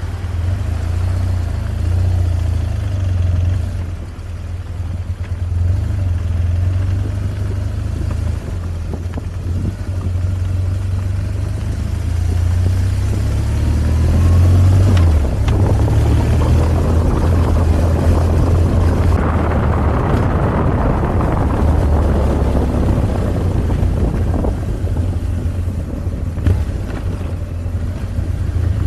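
2005 BMW R1200GS's boxer twin engine running steadily under way on a gravel road. A rushing noise swells around the middle and fades again.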